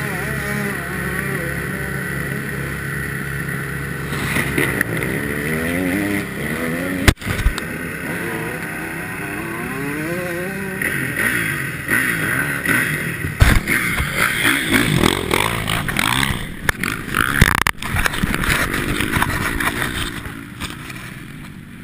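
Dirt bike engines: a steady engine note, then engine pitches rising and falling as bikes rev and pass. There is a sharp knock about seven seconds in, and irregular knocks and scraping through the second half.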